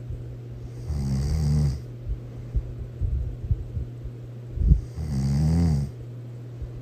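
A person snoring loudly: two long buzzing snores about four seconds apart, with a short low thump just before the second. A steady low hum runs underneath.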